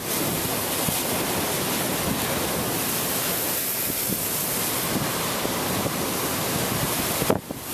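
Storm waves surging and breaking in a gale: a steady, unbroken rush of surf and wind noise that dips briefly near the end.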